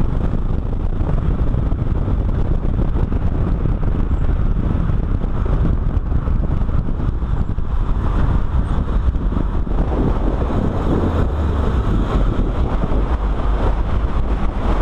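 Car engine running and road and wind noise, heard through a camera mounted on the outside of the car's door, which buffets the microphone as the car drives at speed around a circuit.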